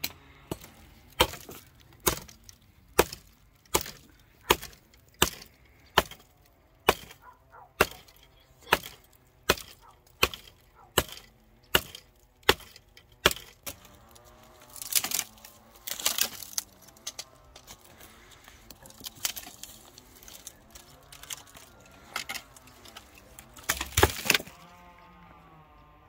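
Chopping on wood: a blade striking at a steady pace of a little over one blow a second. After about 13 seconds the blows become irregular and scrappier, with a last heavy strike shortly before the end.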